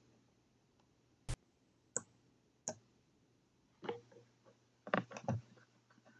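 Short, separate button clicks from navigating an on-screen menu: single clicks about every second, then a quick cluster of three about five seconds in.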